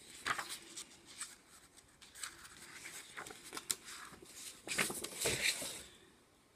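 Sheets of patterned card-making paper rustling and sliding as they are turned over and drawn from a cardboard box, with a louder flurry of rustling about five seconds in.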